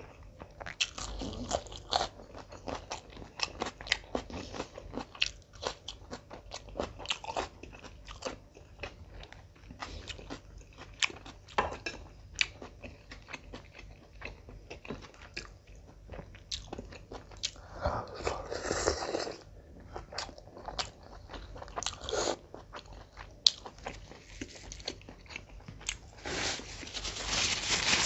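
Close-miked chewing and biting of mutton biryani and chicken: a dense run of wet mouth clicks and smacks, with two longer noisy stretches, one about two-thirds through and one near the end.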